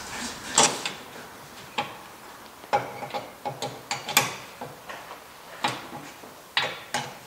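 Sharp metallic clicks and clinks from a wheel brace working the wheel nuts on a car's steel wheel, roughly one a second at uneven intervals as the brace is turned and repositioned.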